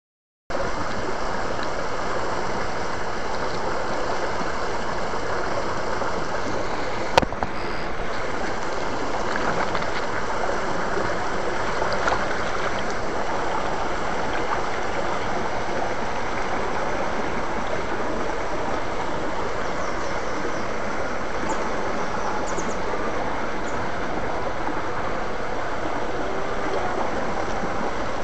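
Shallow stream water running over rocks: a steady rushing, with a single sharp click about seven seconds in.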